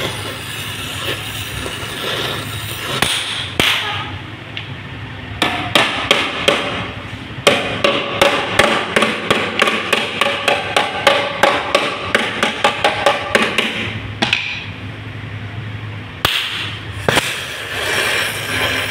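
A hammer strikes the car's sheet-metal body panel in a quick run of ringing blows, about three a second, for some eight seconds in the middle. Before and after the run there is the steady hiss of the gas welding torch flame.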